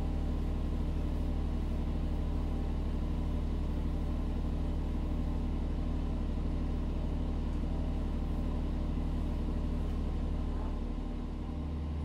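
A steady low mechanical hum, like machinery running without pause, made of several level tones; it drops slightly near the end.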